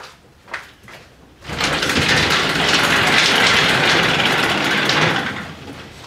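Gusty high wind heard through an opened door: a loud, steady rushing that swells up about a second and a half in and fades away near the end, after a few light clicks.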